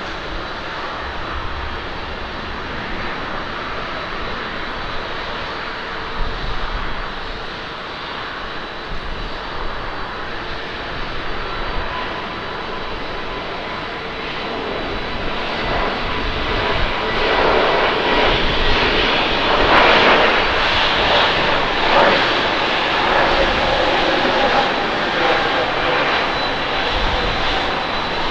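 Airbus A320neo's twin turbofan engines at takeoff thrust, a steady jet rush with a faint high whine. The noise swells about halfway through and is loudest about two-thirds of the way in as the airliner runs down the runway and lifts off.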